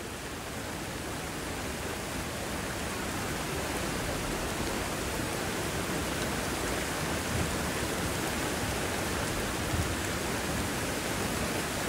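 Fast-flowing floodwater rushing down a street along with heavy rain: a steady, even rushing hiss that grows slightly louder over the first few seconds.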